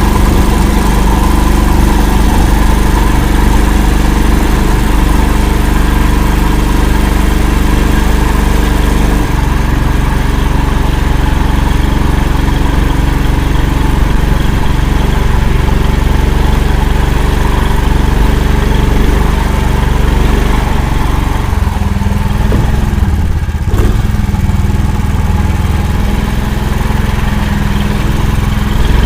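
Engine of an Akula all-terrain vehicle running steadily under way, a loud continuous drone. Its note changes about nine seconds in and shifts again briefly around twenty-three seconds.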